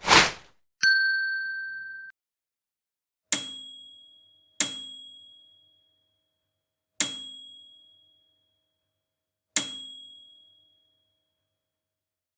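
A short burst of noise, then a steady high tone held for about a second that cuts off sharply, followed by four separate bell-like dings at uneven intervals, each ringing out and fading over about a second.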